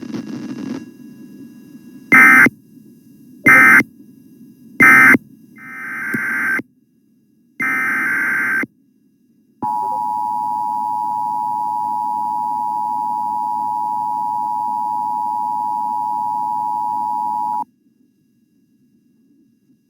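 Emergency Alert System signalling tones: three short warbling digital data bursts about a second apart, marking the end of one alert, then a longer data burst. After that comes a steady eight-second EAS attention tone, the alarm that opens the next alert, which cuts off abruptly.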